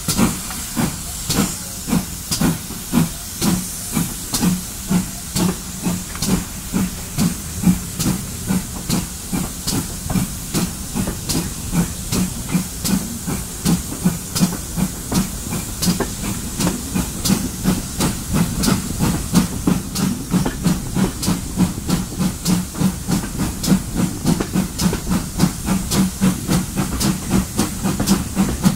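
Steam locomotive exhaust beats chuffing over a steady hiss as the train pulls away. The beats quicken from about two a second to three or four a second as it gathers speed.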